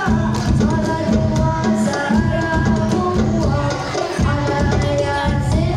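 Young voices singing a sholawat, an Indonesian Islamic devotional song, led into a microphone, over a steady rhythm of hand-played frame drums (rebana). The drums break off briefly about four seconds in.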